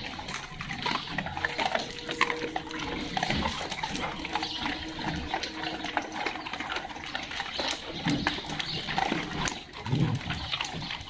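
A crowd of dogs, German shepherds and Labradors among them, jostling together on a tiled floor: short whines over a busy run of clicks and scuffling.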